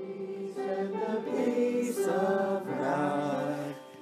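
A choir singing, several voices holding notes together, fading briefly near the end.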